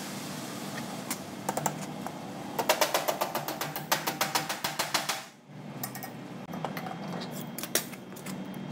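Hammer tapping a thin brass strip over the edge of a steel lathe-chuck hard jaw, bending it to form a shim pad. A few single taps come first, then a quick run of light, rapid taps lasting a couple of seconds, then a few more single taps.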